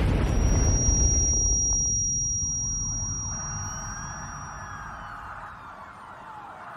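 Cartoon sound effect of a wall collapsing in an earthquake: a rumbling crash that fades away over the first two to three seconds, with a steady high ringing tone over it. Faint rising and falling tones follow.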